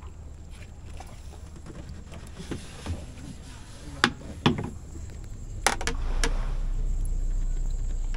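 A few sharp knocks and slaps as a freshly caught fish is handled at the side of a boat. A low steady hum sets in about six seconds in.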